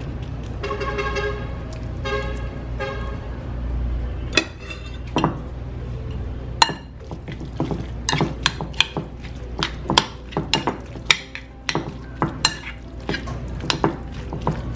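Fork stirring and scraping through a tuna, mayonnaise and diced avocado filling in a ceramic dish, with many sharp clicks of the fork against the dish from about four seconds in.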